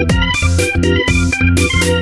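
Instrumental background music with a steady beat and quick, regularly changing notes.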